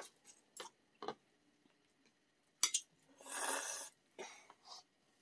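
Ramen being eaten with chopsticks: a few light clicks of chopsticks and bowls, then a slurp of noodles about three seconds in, with a softer one just after.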